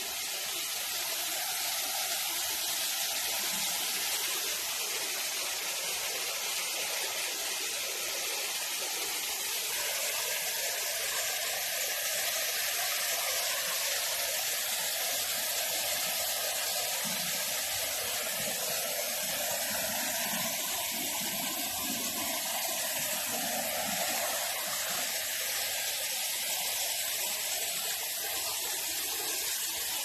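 Steady rush of water, an even hiss with no separate splashes or drops standing out.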